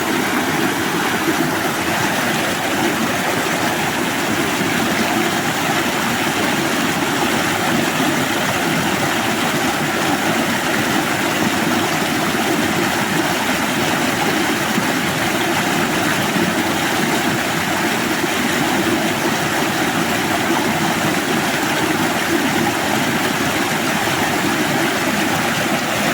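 Running water rushing steadily, an even unbroken hiss and rumble that doesn't change.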